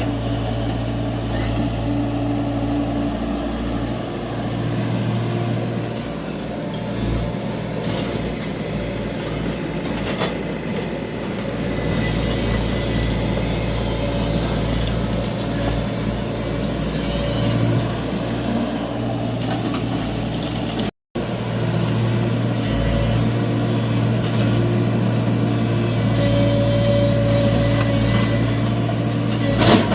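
Diesel engine of a Tata Hitachi EX70 excavator running steadily at working speed while it digs and loads a truck. The sound cuts out for a moment about two-thirds in, and a sharp knock comes at the very end.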